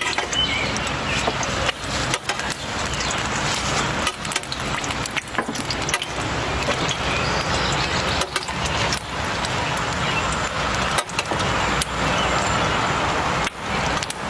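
A large batter fritter deep-frying in a wide pan of hot oil over a charcoal fire, sizzling steadily with frequent small crackles. A ladle works in the oil, spooning it over the top of the fritter.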